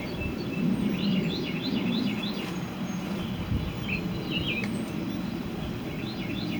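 Birds chirping, a quick series of short chirps repeating throughout, over a low, steady outdoor rumble.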